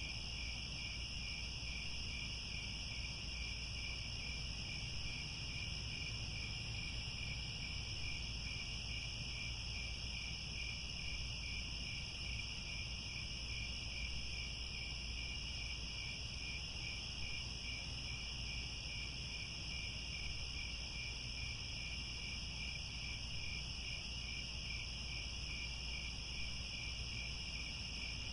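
A chorus of crickets chirping steadily without pause. It is a high, evenly pulsing trill over a constant low rumble.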